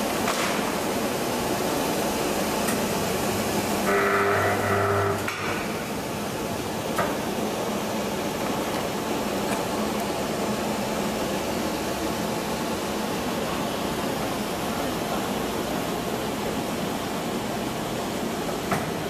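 Automatic spiral paper tube winding machine running with a steady mechanical noise as it forms a continuous paper core. About four seconds in, a brief buzzing tone sounds for about a second.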